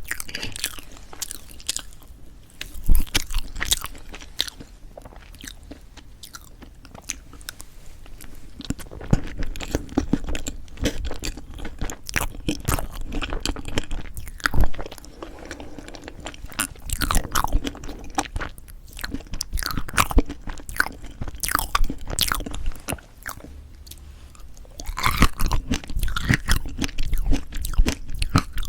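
Close-miked chewing of strawberry-chocolate fresh-cream cake: soft, wet mouth sounds with many quick sticky clicks, coming in bursts with short quieter pauses.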